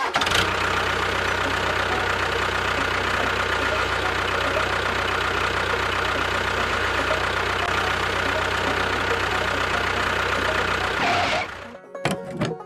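An engine runs steadily for about eleven seconds, then cuts out.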